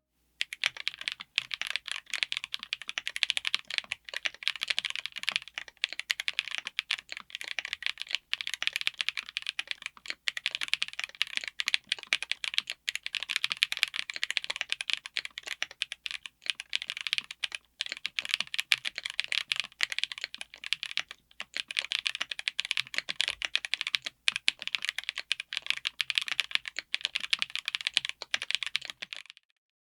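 Continuous fast typing on a mechanical keyboard with Kailh Lunar linear switches in an aluminum case with an FR4 plate: a dense run of keystroke clicks and bottom-outs that stops near the end.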